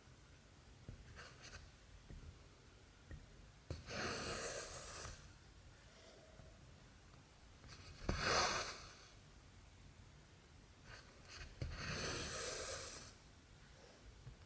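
Cotton embroidery thread pulled through cross-stitch fabric: three soft swishes about four seconds apart, with a few faint needle clicks between them.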